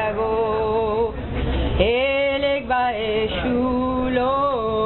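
Voices chanting in long held notes, with a slow rise in pitch about two seconds in and a fall near the end.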